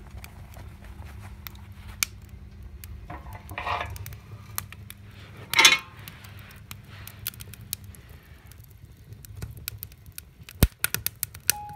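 Steel wood-burning stove being handled: two short metal scrapes and clanks, the second the louder, about three and a half and five and a half seconds in. Under them a wood fire crackles with scattered small pops, and there is a quick run of sharp snaps near the end.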